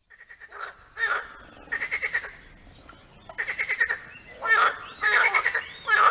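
Animal calls: a run of short, rattling croaks about half a second each, coming in five or six clusters with several calls overlapping.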